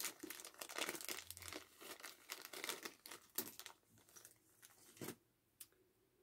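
Small plastic zip-lock bag crinkling as it is opened and handled, a dense run of crackles for about three and a half seconds, then a few scattered rustles that stop about five seconds in.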